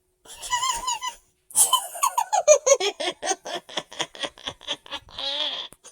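A young voice laughing: a long giggle of quick bursts, about five a second, falling in pitch, with a short vocal sound before it and another near the end.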